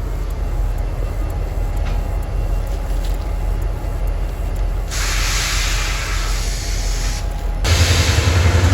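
Freight train rumbling steadily. A loud hiss cuts in about five seconds in, stops briefly, then resumes as the low rumble grows louder near the end.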